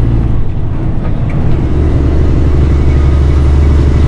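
Large diesel engine of farm machinery running loud and steady, its low note shifting about a second and a half in.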